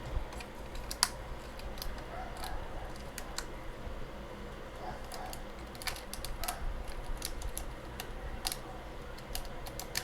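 Plastic keycaps being pressed back onto a computer keyboard: scattered sharp clicks at uneven intervals, the loudest about a second in.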